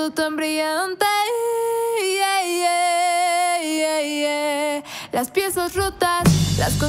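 A solo singing voice in a Mexican pop song, holding long notes over very sparse backing. The full band comes in with bass about six seconds in.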